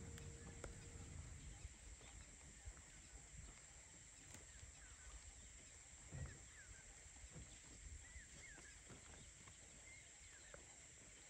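Near silence: faint outdoor ambience with a few faint, short bird chirps in the second half and a steady high faint tone. A soft bump about six seconds in.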